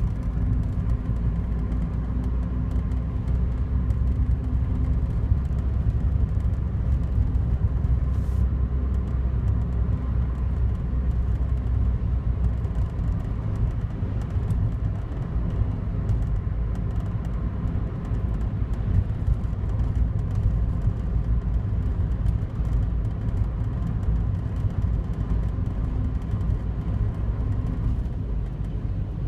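Daihatsu Wake kei car's 660 cc three-cylinder running with a steady low rumble and a faint steady tone over it, carrying an abnormal noise that the owner reports is worst when the outside air is cold.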